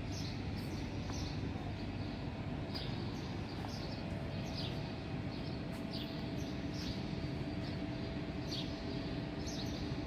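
Small birds chirping, short high chirps every second or so, over a steady background noise with a faint constant hum.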